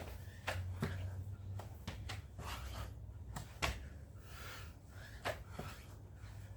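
A person exercising: scattered knocks and clicks of movement with breathy rushes of noise, over a steady low hum.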